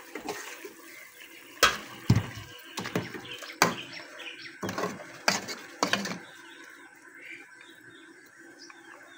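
A metal ladle clinks and scrapes against a metal bowl and an aluminium cooking pot as tamarind pulp is scraped into the soup and stirred in. There are several sharp knocks over the first six seconds, then it goes quieter.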